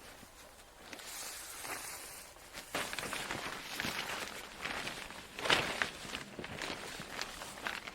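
Footsteps crunching on rough ground, irregular steps about two a second, the loudest about five and a half seconds in.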